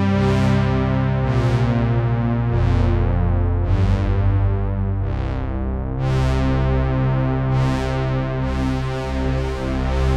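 Sequential Prophet-6 analogue polyphonic synthesizer playing a factory preset. Sustained chords over a held bass note, with new notes struck about once a second; each starts bright and mellows as it decays. The bass moves to a new note twice.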